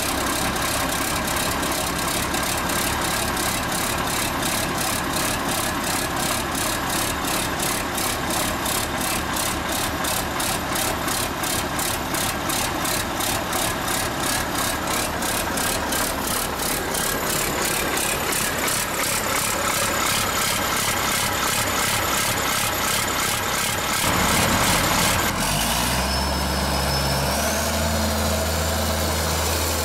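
Ford TW-25's six-cylinder turbo diesel running with its exhaust removed, so it sounds loud and unsilenced with a fast, even beat. About 25 seconds in the sound changes to a steadier, deeper engine note, with a high turbo whistle that rises in pitch.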